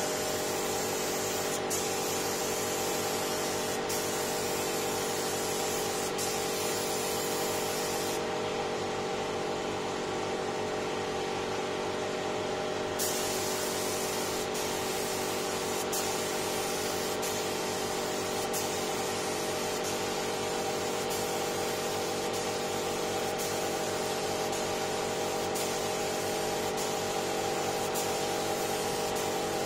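Gravity-feed air spray gun hissing as it sprays finish onto wood, over a steady mechanical hum. The high hiss cuts off for about five seconds a third of the way in, then resumes.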